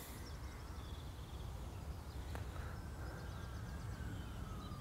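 Faint outdoor ambience: small birds chirping and trilling here and there over a low steady rumble, with a faint tone slowly falling in pitch in the second half.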